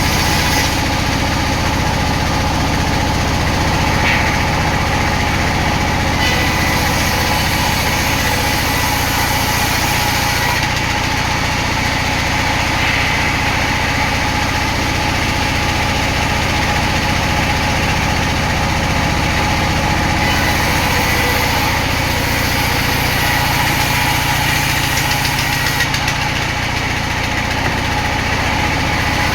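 Sawmill machinery running steadily: the saw and its drive motor keep up a constant low hum, with small changes in the higher hiss every few seconds.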